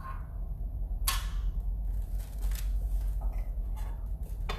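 A steady low hum with a few brief rustles and clicks of something being handled close to the microphone, the sharpest about a second in.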